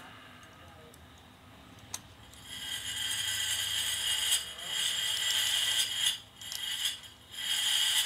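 Machinery running: a single sharp click about two seconds in, then a loud steady mechanical whir with a high whine that sets in about halfway through and cuts out briefly twice near the end.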